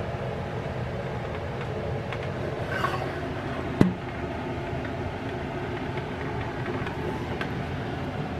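Steady running noise of heating that has just come on, with a single knock about four seconds in.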